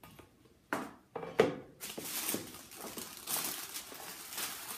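Tissue paper rustling and crinkling as it is pulled apart by hand, with a sharp knock from handling the box about a second and a half in.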